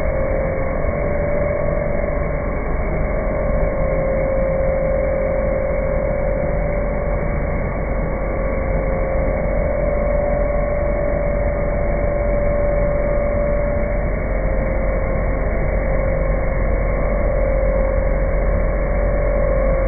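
CNC router machine running steadily: a constant mechanical noise with a sustained whine that swells and fades a little in loudness.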